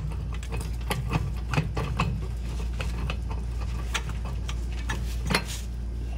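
Irregular light metallic clicks and ticks, a few a second, as the disc blade and hub of a John Deere drill opener are worked off the spindle, with a sharper knock about five seconds in, over a steady low hum.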